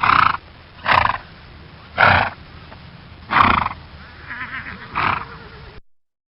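Horse calling: five short, breathy calls about a second apart, with a fainter one between the last two.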